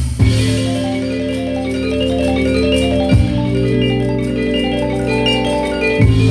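Live band playing instrumental music: a fast, busy melody of tuned mallet percussion over sustained low bass notes, with heavy accents at the start, about three seconds in and near the end.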